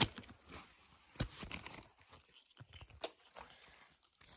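Clear plastic poly bag crinkling and tearing as it is opened by hand, in short, scattered crackles and rustles with quiet gaps between.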